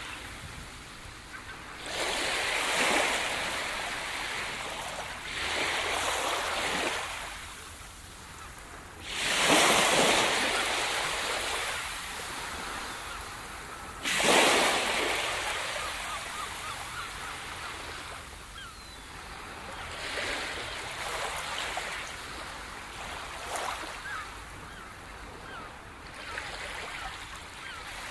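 Ocean waves breaking on a shore, each one swelling up fast and washing out over a few seconds. The biggest breaks come about a third of the way in and again near the middle.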